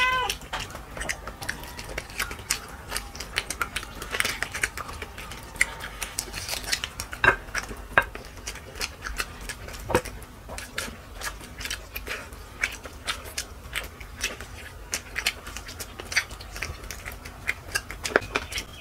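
Eating at a plate: scattered clinks and taps of dishes and cutlery, with chewing and biting. A cat meows once right at the start.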